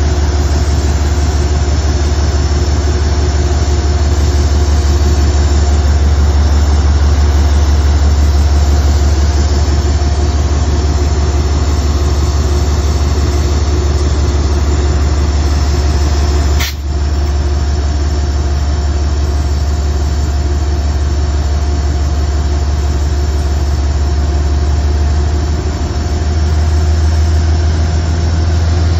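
GE P32AC-DM diesel locomotive idling: a steady low drone from its 12-cylinder diesel engine, with a faint whine above it. A brief click comes about two-thirds of the way through, and the low engine note shifts slightly near the end.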